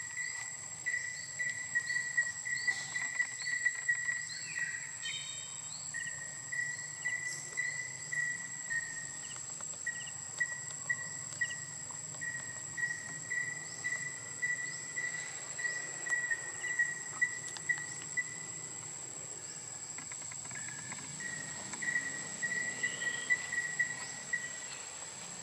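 Insects chirping outdoors: a high chirp pulsing without a break and a steady, even higher whine, with short faint chirps scattered over them.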